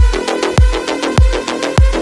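Electronic music: a deep kick drum that drops in pitch on each beat, about every 0.6 s, with fast ticking percussion over sustained synth chords.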